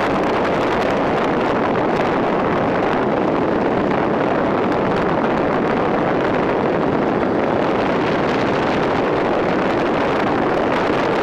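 Steady wind rush on the microphone while riding a two-wheeler at road speed, with the ride's running noise blended under it.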